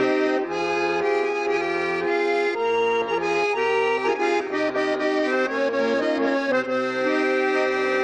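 Accordion playing a folk-song melody over bass notes, an instrumental passage with no singing, the notes changing about twice a second.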